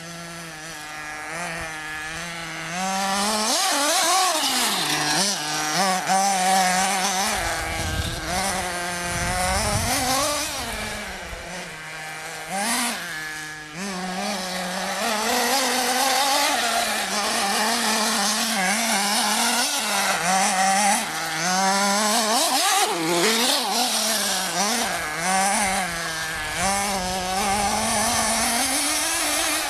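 Radio-controlled off-road buggy's small engine, revving up and easing off again and again as it is driven. It makes a buzzing whine whose pitch keeps rising and falling quickly.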